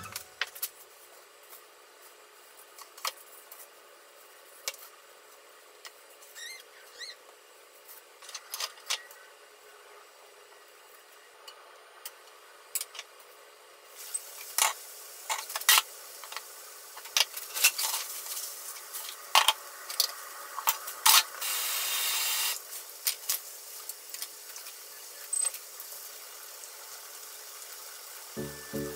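Faint clicks and rubbing as breadcrumbs are pressed onto a raw tuna block on a metal tray. About halfway in, the breaded tuna goes into hot oil in a frying pan and sizzles steadily, with sharp clicks of metal tongs, louder for a moment later on.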